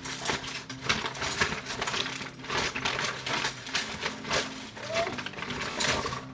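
Rapid, irregular clicking and clattering from small objects being handled, with a steady low hum underneath.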